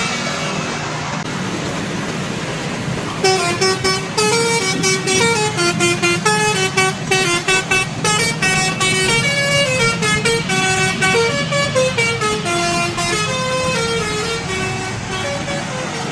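Bus 'telolet' horn, a multi-trumpet air horn, playing a quick stepping melody, starting about three seconds in and stopping shortly before the end, over a bus engine running.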